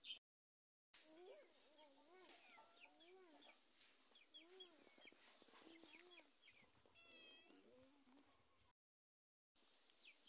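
Domestic hen clucking repeatedly in short rising-and-falling calls, with small birds chirping and a steady high insect drone behind. The sound cuts out completely twice, briefly near the start and again near the end.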